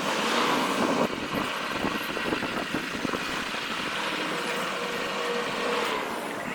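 A car running, a steady mechanical noise with scattered light clicks and rattles.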